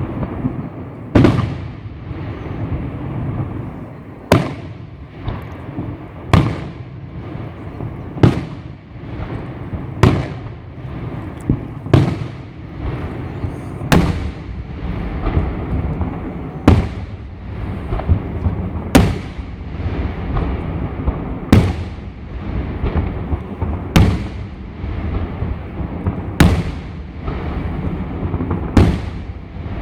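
New Year's fireworks exploding: loud single bangs roughly every two seconds, each with a short echoing tail, over a continuous rumble of many more fireworks going off.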